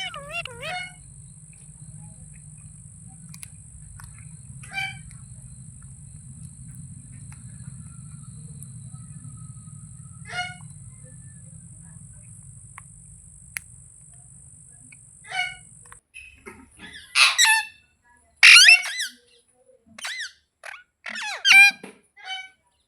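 Green Indian ringneck parakeet calling: a few short, sparse squawks over a steady hum, then, after about sixteen seconds, a run of loud, harsh screeches.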